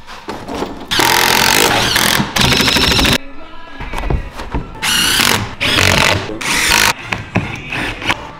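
A handheld power tool running in several loud bursts, each a second or two long, the sound of fasteners being driven out.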